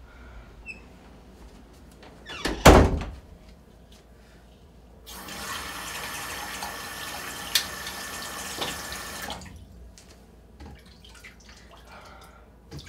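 A loud thump about two and a half seconds in, then a bathroom sink tap running in a steady stream for about four seconds before it stops.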